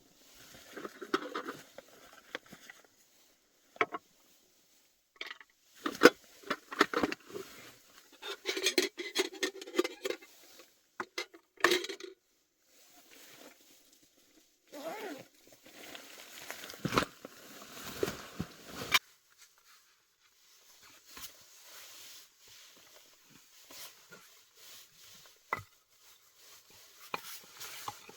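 Irregular knocks, clicks and rustling of things being handled, in clusters with quiet gaps between them, busiest in the middle and sparser near the end.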